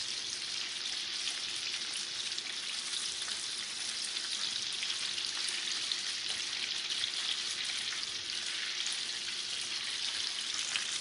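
Chicken pieces frying in hot oil: a steady sizzle with light crackling.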